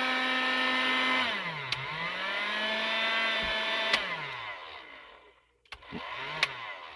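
Repaired Silverline heat gun running on mains, its fan motor giving a steady whine; a little over a second in the whine drops in pitch and climbs back, and about four seconds in it winds down to a stop. Sharp clicks follow, and the motor briefly spins up and down once more.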